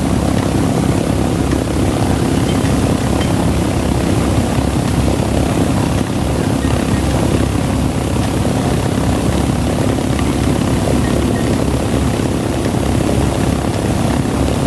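B-25 Mitchell's twin Wright R-2600 radial engines running steadily on the ground, both propellers turning, in a loud, even drone.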